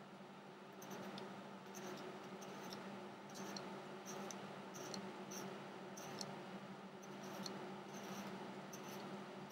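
Hot soldering iron tip pressed dot by dot into a plastic airsoft pistol frame for stippling, each touch giving a faint, short high squeak or sizzle as the plastic melts, about two a second at an uneven pace, over a steady low hum.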